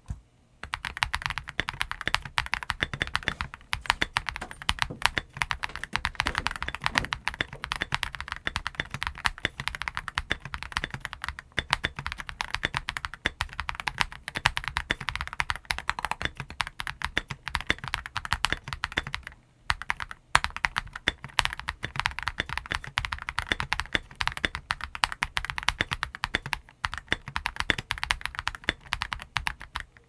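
Fast continuous typing on a stock Tiger Lite mechanical keyboard with a clear case, Akko CS Vintage White linear switches and MT3 /dev/tty keycaps: a dense run of keystroke clacks, with one brief pause about two-thirds of the way through.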